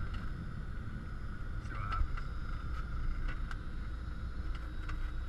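Single-engine light aircraft's piston engine running at low power, heard from inside the cockpit as the plane rolls out after landing, a steady low drone with a few faint ticks.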